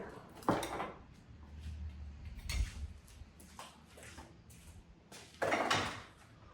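Several knocks and clatters of objects being handled and set down, the loudest about five and a half seconds in.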